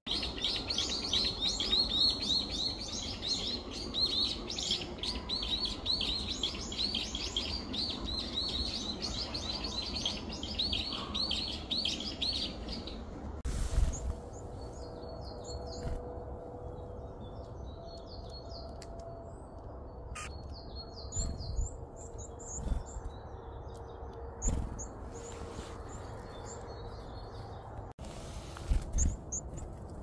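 Woodland songbirds chirping: a dense, fast run of high chirps for about the first thirteen seconds, then after a knock only scattered high calls. A few low bumps come near the end.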